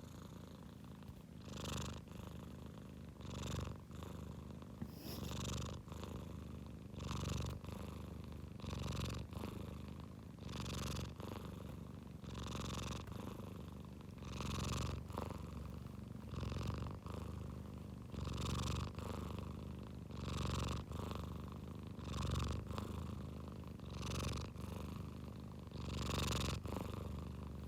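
Domestic cat purring loudly and raspily, snore-like, the rumble swelling and easing with each breath about every two seconds.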